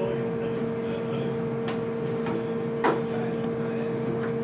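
Steady electrical hum of kitchen equipment with a clear held tone. A few short, soft clicks and rustles come from a banana being peeled by hand, the clearest a little under three seconds in.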